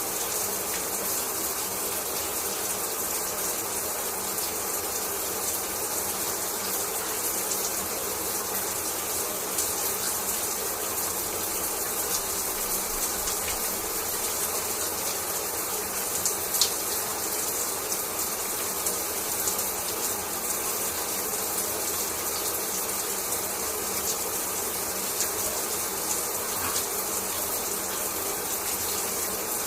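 Shower water running steadily, spray falling in an even hiss with small scattered ticks of droplets, and one sharper tick about sixteen seconds in.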